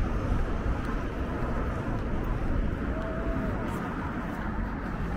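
Street ambience: steady noise of road traffic, with a short tone about three seconds in.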